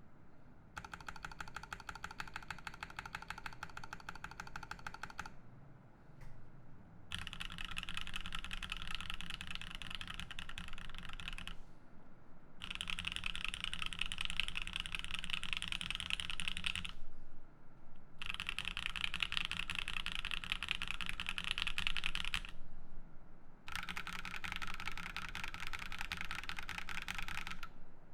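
Typing on a Matrix Noah mechanical keyboard with an aluminium plate, lubed Seal switches and GMK keycaps: fast, even keystroke clatter in five runs of several seconds each, with short pauses between them.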